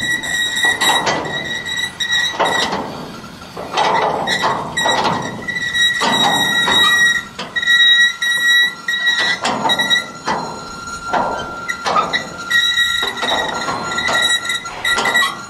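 Railway wagons rolling on the rails: wheels squealing in a steady high note, with irregular clanks and knocks from wheels and couplings.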